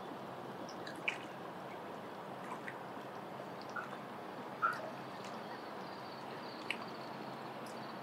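Lake water lapping gently, with a few short drip-like plops over a steady hiss; the loudest plop comes about halfway through.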